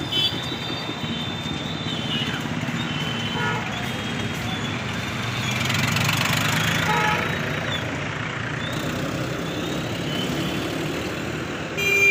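Street traffic running past steadily, with a vehicle going by louder about halfway through.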